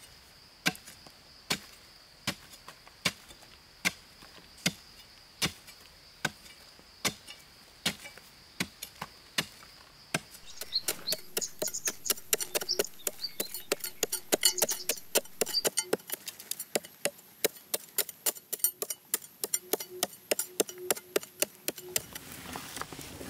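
An axe chopping wood in steady single strokes, a little more than one a second. About eleven seconds in, it changes to faster, irregular chopping strikes.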